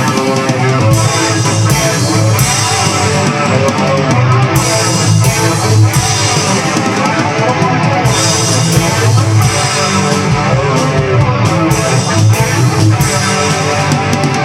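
Playback of a multitrack rock song mix: strummed electric guitars over drums and bass guitar, playing loudly throughout.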